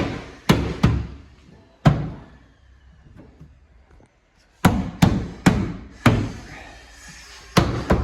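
Sharp knocks of a hand pressing a plastic tailgate trim panel's clips into place, several quick blows about half a second apart, a short pause, then another run of knocks.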